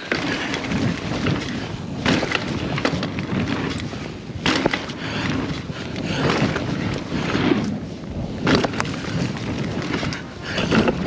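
Rocky Mountain Instinct A10 full-suspension mountain bike ridden down a dirt trail: a steady rolling noise from the tyres, with the bike knocking and rattling over bumps and a few louder knocks spaced a few seconds apart.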